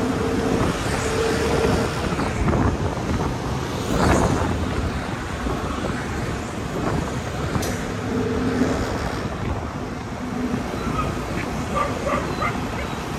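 Wind rushing over the microphone on a moving vehicle, over steady road and traffic noise with a faint engine hum that comes and goes.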